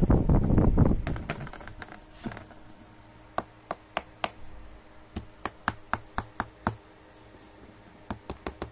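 A statue and its base being handled by hand: a burst of handling noise at first, then a string of small sharp clicks and taps, about a dozen over three seconds, and four quick ones near the end.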